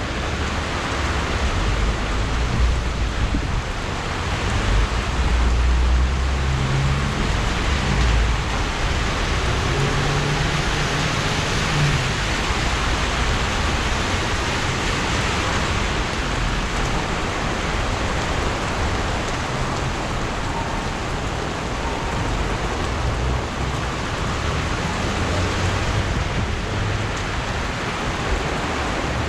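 Heavy rain pouring down in a steady hiss, with a low rumble between about five and twelve seconds in.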